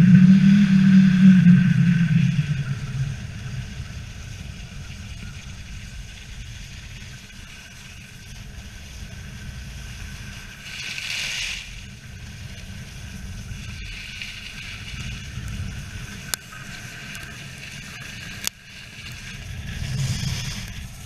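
Wind rumbling on an action camera's microphone while skiing down a groomed slope, loudest for the first couple of seconds. Skis scrape and hiss over the snow in swells on the turns, and there are two sharp clicks near the end.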